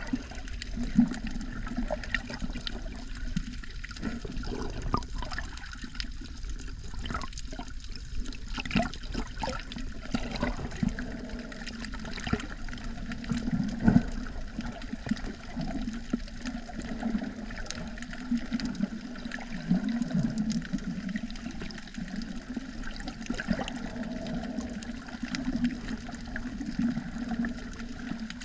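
Underwater recording: muffled rushing and bubbling of water, with scattered faint clicks.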